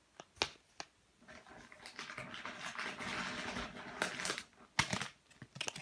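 Plastic packaging crinkling as a packaged squishy is handled: a few light clicks, then a steady rustle for a couple of seconds and some sharper crackles near the end.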